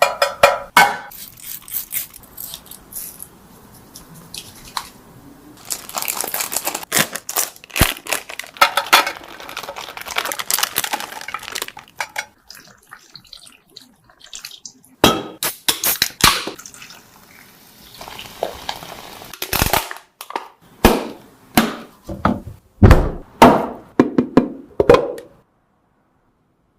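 Kitchen handling sounds: a string of clinks and knocks of dishes and utensils, with a few noisy stretches of a second or more in between. They stop about 25 seconds in.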